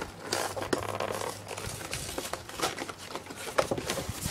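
A trading card collection box's packaging being handled and opened, crinkling and rustling with many irregular crackles and clicks.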